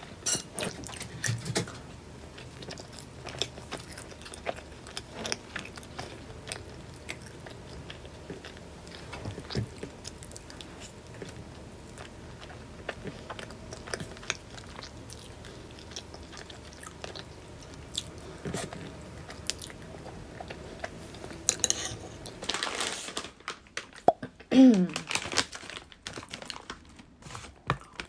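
Close-up chewing and biting of a taiyaki, a fish-shaped pastry with a crisp shell and custard filling, with many small crunches and clicks. Near the end there is a short burst of rustling and a brief falling tone, the loudest moment.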